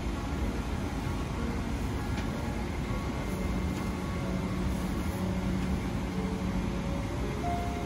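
Steady airliner cabin noise inside a Boeing 777-300ER: an even, low rushing roar.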